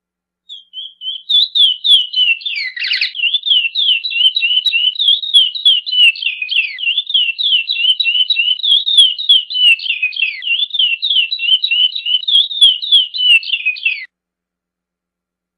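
Male chestnut-bellied seed finch (curió) singing its 'praia' song: a fast, even run of high, down-slurred notes, about three a second, with one lower swoop about three seconds in. It starts about half a second in and stops abruptly near the end.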